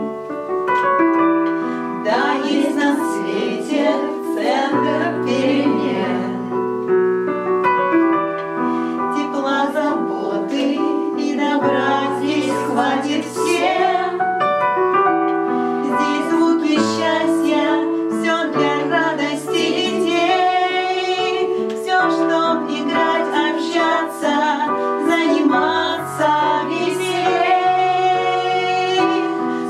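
A group of women singing together, accompanied by a digital piano playing chords.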